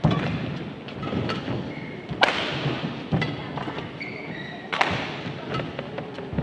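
Badminton racket strikes on a shuttlecock during a rally, a sharp hit about every two and a half seconds with a short echo, and lighter footfalls and brief high shoe squeaks on the court between the hits.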